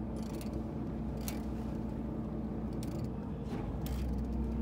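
Fishing boat's engine running with a steady low hum, with a few brief hisses now and then.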